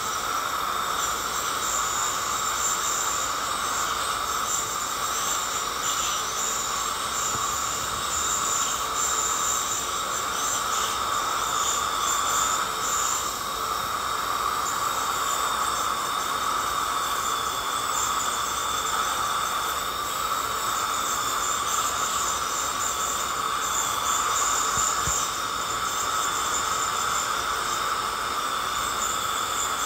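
Ultrasonic dental scaler running as it removes heavy tartar from a smoker's teeth: a steady high-pitched whine over the hiss of its water spray.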